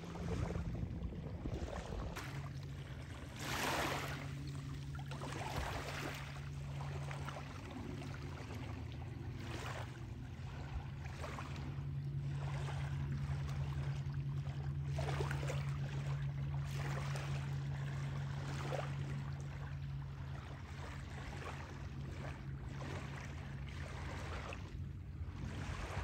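A low, steady motor drone, with rushes of wind and small waves washing on the shore coming and going over it every few seconds.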